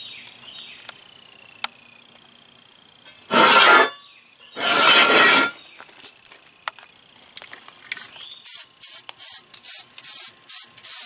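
An aerosol can of red oxide primer being shaken, its mixing ball rattling about three times a second, starting about eight seconds in. Earlier there are two loud bursts of hiss, about half a second and a second long.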